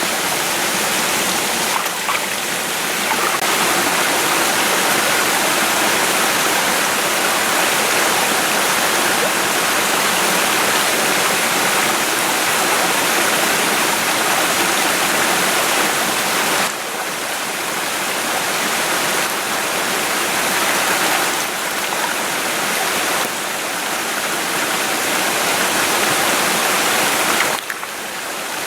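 Small mountain stream running over rocks close by: a steady rush of water, its level dropping and coming back up a few times.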